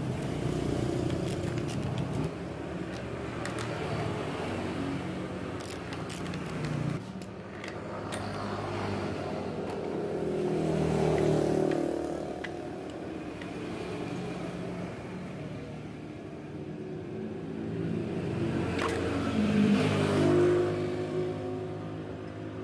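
Motor vehicles passing by, their engine sound swelling and fading twice, around ten seconds in and again near twenty seconds. Light clicks and rattles from the metal parts of a rotary hammer drill being handled and unscrewed.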